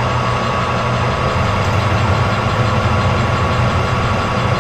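Metal lathe running at speed, its chuck spinning as the tool turns a small round bushing: a steady hum with a thin steady whine above it.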